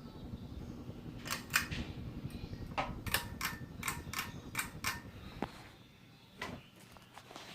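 Hunter Westminster ceiling fan running with a low hum, with about nine sharp clicks in the middle. The hum drops away about five and a half seconds in.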